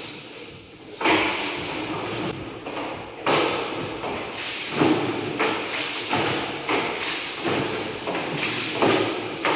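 High-pressure water jet hissing against surfaces in irregular bursts, each burst starting suddenly with a thud, about every half second to a second.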